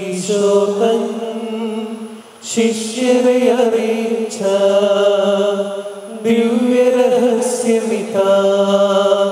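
Slow Malayalam Eucharistic hymn sung in a chant-like style, long held notes in phrases of about two seconds with short breaks between.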